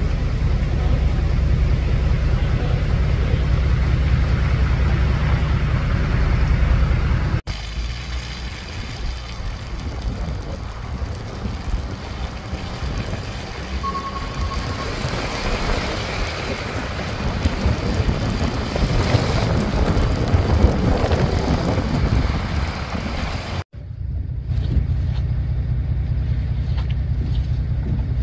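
Vehicle engines and traffic running on snow-covered streets, with a steady low rumble through much of it. The sound cuts abruptly twice. A short steady high tone sounds about 14 seconds in.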